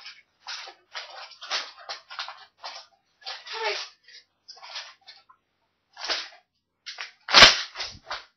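Packaging being folded by hand, rustling and crinkling in short irregular bursts, with one louder bump about seven seconds in.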